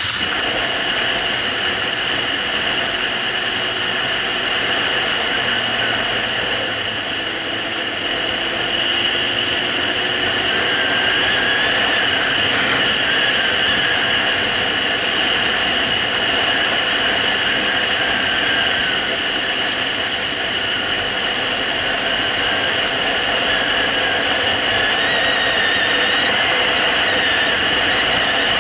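Steady wind rush over an action camera on a moving Suzuki GSR750 motorcycle, with the bike's inline-four engine running faintly underneath.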